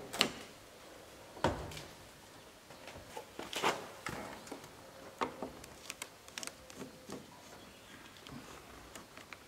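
A Mercedes W124 front door's handle and latch click open at the start, with a knock about a second and a half in. Scattered small clicks, taps and scrapes follow as a screwdriver works at the inner door trim by the side-mirror mount.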